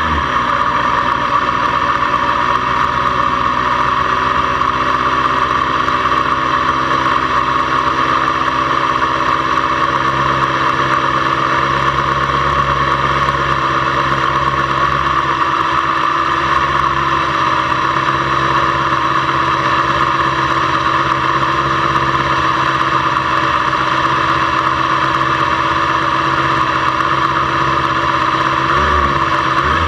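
Motorcycle engine idling steadily at close range, with a slight rise and fall in revs near the end.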